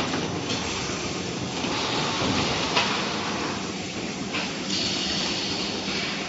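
Automatic plywood putty-coating line running: a steady din of conveyor rollers and machinery, with a sharp click about three seconds in and a high hiss near the end.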